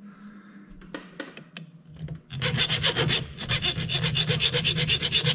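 Steel hand file rasping across the end of the splines on a 12-bolt Chevy pinion gear, dressing a spline that is mushed at the end so the pinion yoke will slide on. A few light scrapes, then from about two seconds in a run of quick short strokes with a brief pause.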